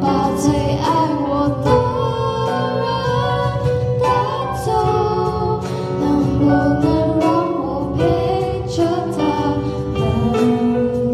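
Live acoustic band playing: two female voices singing over acoustic guitar and keyboard, with regular percussion hits.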